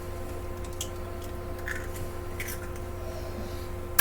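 A few faint clicks and taps from kitchen handling over a steady low hum, ending in one sharper click.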